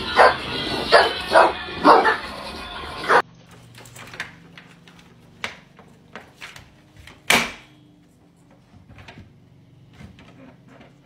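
A bulldog barking loudly and repeatedly, about six barks in the first three seconds. After an abrupt cut, quieter scattered clicks and knocks follow as a dog pushes a softball through a pet-door flap, with one sharp knock about seven seconds in.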